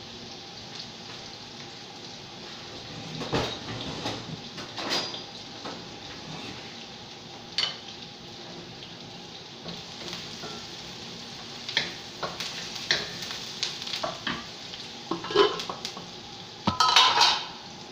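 Diced onion and garlic sizzling steadily in oil in a wok. Every so often a spatula clacks and scrapes against the pan while stirring, and there is a louder clatter of pan and utensil near the end.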